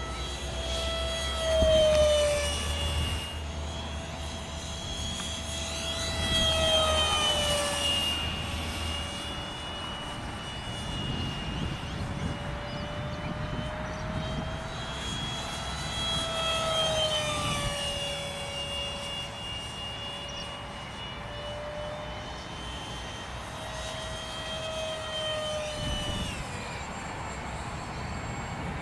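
Freewing Mini MiG-15's 64 mm electric ducted fan whining as the RC jet flies past four times; each pass swells and drops in pitch, the loudest about two seconds in.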